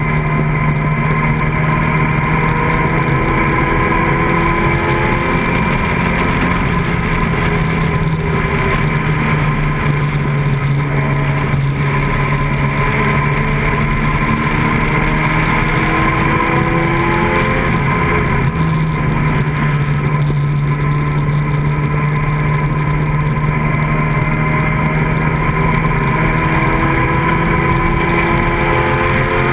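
Open-cockpit vintage sports racing car's engine, heard from the cockpit at racing speed, its pitch rising again and again as it accelerates through the corners and straights, with wind noise over the open cockpit.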